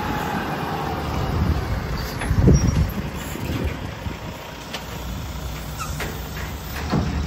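Heavy lorry engine running with a low rumble, louder for a moment about two and a half seconds in.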